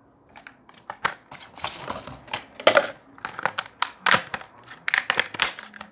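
Toy packaging being handled and opened by hand: irregular crinkles, crackles and clicks of plastic and cardboard, with a louder crackle about two and a half seconds in and another about four seconds in.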